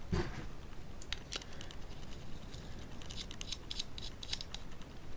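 Small irregular clicks and light rustling of hands handling small parts: a plastic parts bag and a standoff being fitted and twisted into a carbon-fibre gimbal damper plate.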